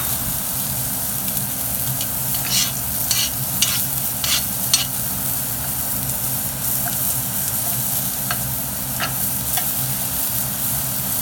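Salmon fillets sizzling as they fry in a pan, over a steady low hum. A utensil scrapes and clicks against the pan in a quick run of about six strokes a couple of seconds in, and a few more times later.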